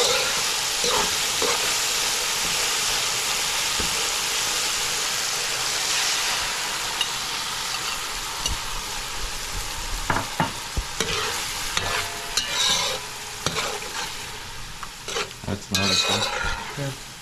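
Chopped onion, tomato and pepper sizzling in hot oil in a metal pan, stirred with a spatula. About halfway through, a watery paste of curry powder, cumin and turmeric is in the pan and the sizzle settles to quieter bubbling, with the spatula scraping and clicking against the pan.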